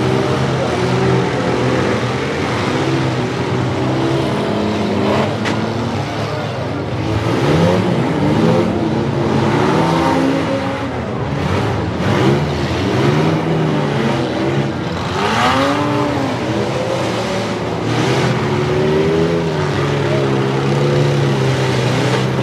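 Engines of several demolition derby minivans, mini trucks and SUVs revving up and down at once, with a few sharp crashes as they ram each other.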